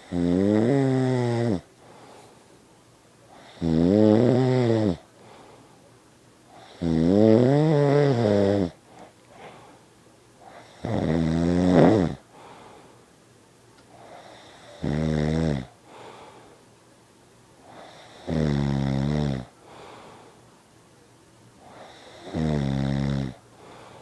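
A man snoring loudly in his sleep: seven long, rattling snores, roughly one every three and a half to four seconds, each rising and then falling in pitch.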